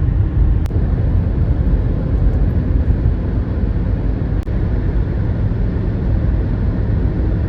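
Steady low rumble of road and engine noise heard inside a moving car, with two brief faint clicks, one about a second in and one past the middle.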